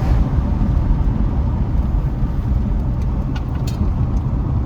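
Steady road and engine rumble inside a moving car's cabin, with a few light clicks about three and a half seconds in.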